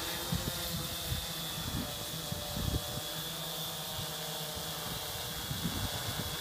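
Hexacopter's six electric motors and propellers buzzing steadily as it hovers low, with irregular low rumbles of air on the microphone.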